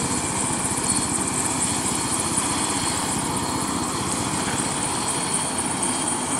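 Red air-ambulance helicopter running on the ground before lift-off, heard from a distance as a steady, even noise.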